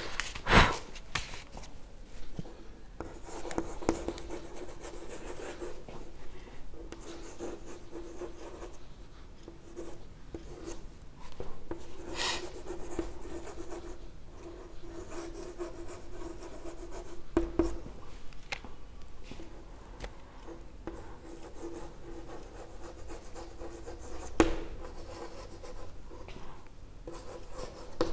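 Chalk scratching on a chalkboard as a sentence is written out, in short strokes with brief pauses between words, with a few sharper knocks of the chalk against the board.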